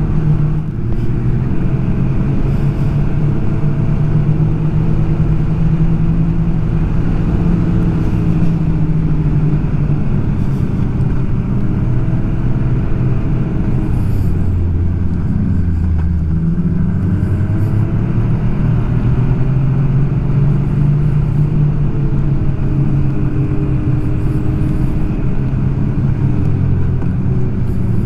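Snowmobile engine running under way along a trail, its pitch rising and falling with the throttle and dropping lowest a little past halfway before climbing again.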